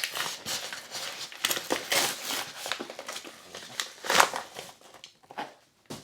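Packaging rustling and crinkling as a product box is unwrapped and opened, with a run of scratchy strokes and one louder rustle about four seconds in.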